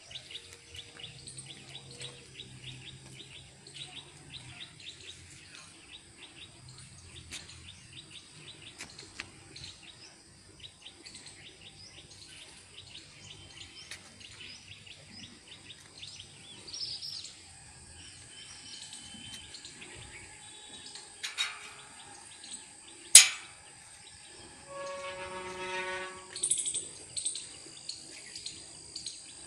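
Birds chirping and calling, with many short chirps throughout. About 23 seconds in comes a single sharp click, the loudest sound, and shortly after it a brief pitched sound with several overtones.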